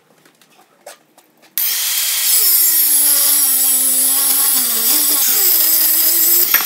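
Angle grinder cutting steel held in a vise. It starts suddenly about a second and a half in and runs loud, its pitch dipping and wavering as the disc bites into the metal, then cuts off just before the end.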